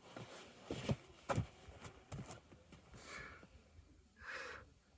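Faint taps and scuffs of a climber's hands and shoes on rock in the first second and a half, then two short, hissing breaths.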